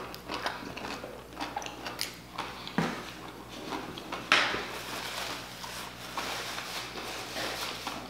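Close-miked chewing of a tortilla chip loaded with meat and melted cheese: irregular crunching and wet mouth clicks, with louder crunches about three and four seconds in.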